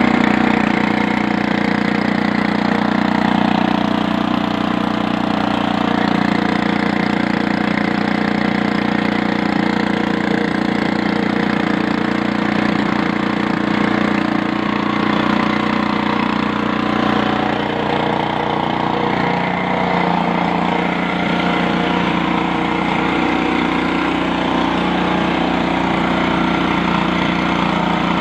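Small gasoline engine-driven water pump running steadily under load, pumping water out of a well, with the discharge gushing and splashing out beside it.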